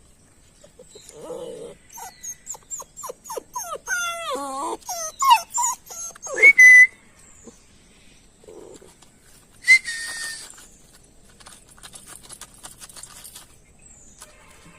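A dog whining and yelping: a quick run of short, high, falling cries, then two louder drawn-out whines a few seconds apart.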